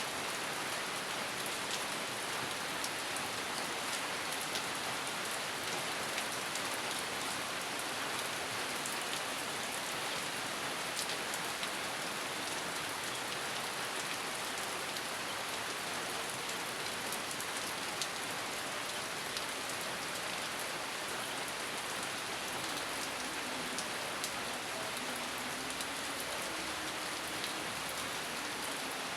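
Steady rain falling, a constant hiss dotted with the fine pattering of individual drops striking a surface; no thunder is heard.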